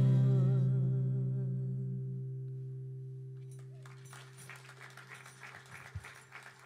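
Last strummed chord on an acoustic guitar ringing out and slowly dying away at the end of a song. From about three and a half seconds in, a few people clap lightly, and there is a soft thump near the end as the tambourine is set down on the floor.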